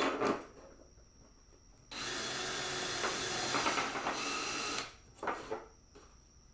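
Cordless drill running steadily for about three seconds, driving a screw to fasten a fan back onto the radiator, with short bursts of handling noise just before and after.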